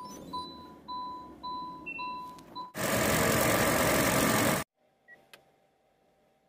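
Hyundai Creta's electronic warning chime beeping about six times, roughly two beeps a second. About three seconds in, a loud burst of engine noise from the open engine bay lasts about two seconds and then cuts off suddenly, leaving it quiet apart from a single click.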